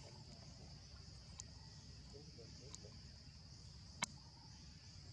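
Faint, steady, high-pitched insect drone over a low background rumble, broken by a few sharp clicks, the loudest about four seconds in.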